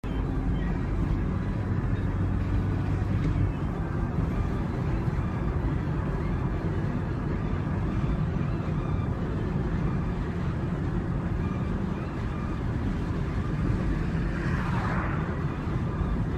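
Steady road rumble and wind noise inside a moving car, with a slight swell of hiss near the end.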